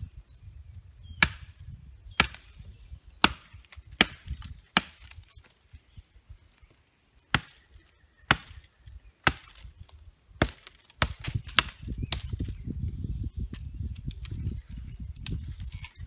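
A homemade knife chopping into the base of a thin sapling: sharp wooden chops about once a second, with a short pause about halfway through.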